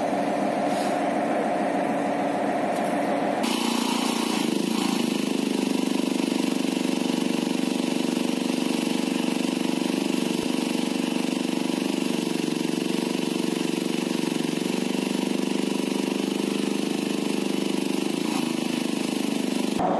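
Truck-mounted crane's engine running steadily at idle. Its tone changes abruptly about three and a half seconds in and then holds steady.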